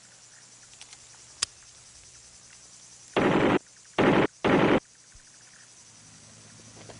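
Machine gun fired in three short bursts about three seconds in, the last two close together.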